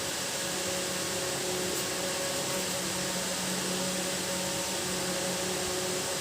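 Steady hiss with a low, even hum from a running appliance; no bird calls are heard.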